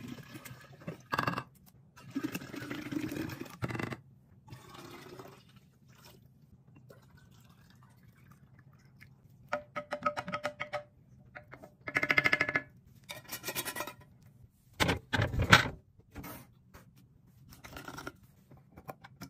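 Coffee concentrate pouring from a plastic bottle into a glass drink-dispenser jar. Then a wooden spoon stirs and knocks against the glass, which rings. A couple of loud knocks follow, and near the end come the clicks of a plastic bottle cap being twisted off.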